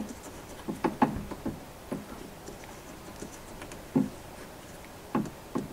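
Brass float-bowl nut being threaded by hand into a Tecumseh carburetor: a few scattered light clicks and taps of fingers and metal parts.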